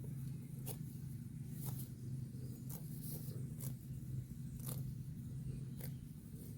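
A grazing cow tearing grass, a crisp rip about once a second, over a steady low hum.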